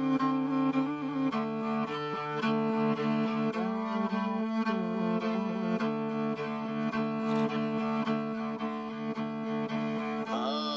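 Background music with held notes from bowed string instruments in a low, cello-like register.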